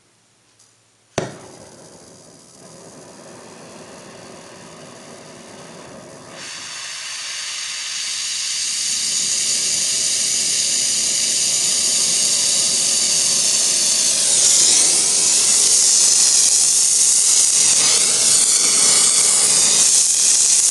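Gas torch lit with a sharp pop about a second in, then its flame hissing steadily, growing louder in steps as the gas is turned up, as it heats the dented aluminium alloy wheel rim.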